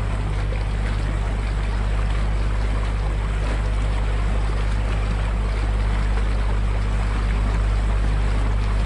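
Open canal tour boat under way: the engine runs steadily with a low hum while the wake churns and splashes close behind the stern.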